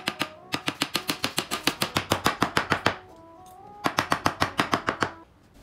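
Claw hammer tapping rapidly on the edge of a white flat-pack IKEA cabinet panel during assembly, about eight quick blows a second in two runs with a pause of about a second between them.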